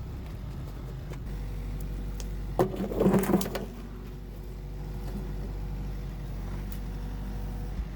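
An engine running steadily, with a louder burst of clattering about three seconds in.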